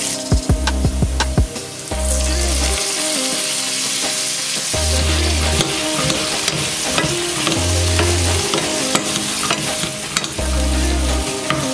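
Carrot sticks, almonds and bacon sizzling in hot oil in a nonstick frying pan, stirred with a wooden spatula and a metal spoon that click and scrape against the pan. The sizzling grows louder about two seconds in, as soy sauce goes into the hot pan.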